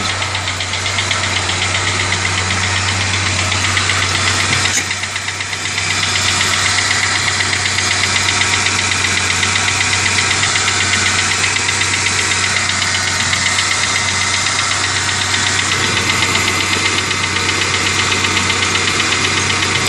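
Car engine running with a fast, even ticking over a steady low hum, dipping briefly about five seconds in. The noise appeared right after an oil change and is still there with a new mass airflow sensor fitted; its cause is unknown.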